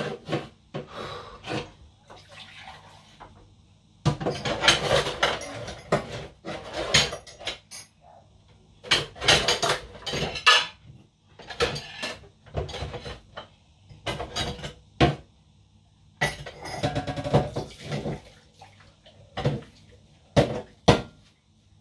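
Dishes and cutlery clattering and clinking in a kitchen sink as they are washed by hand. The sound comes in bursts with short pauses, and a few sharp single clinks come near the end.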